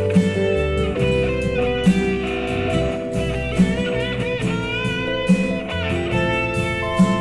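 Instrumental break in a slow rock ballad: an electric guitar plays a melodic lead with some bent, gliding notes over bass and drums, the snare landing about every 1.7 seconds.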